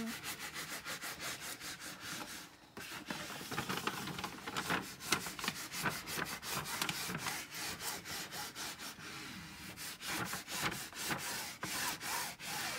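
Paper protective sheet of a diamond-painting canvas being handled and laid back over the canvas's sticky adhesive surface: a dense, rapid crackling and rustling of the paper as it is lifted, repositioned and rubbed down.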